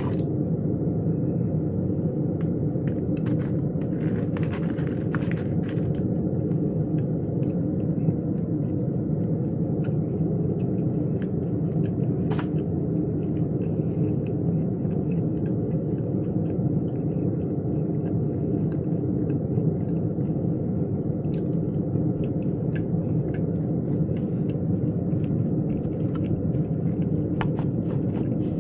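Steady low rumbling noise, even throughout, with a few faint scattered clicks and taps.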